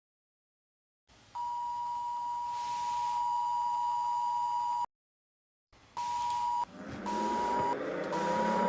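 Emergency-alert style electronic tone: one long steady beep for about three and a half seconds, then after a short break a run of short beeps at the same pitch. From the second beep onward a low sound rising in pitch builds underneath.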